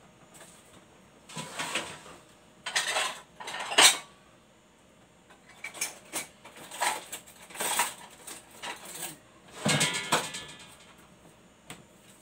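Kitchen dishes and utensils clattering and clinking in several short bouts, the loudest about four seconds in.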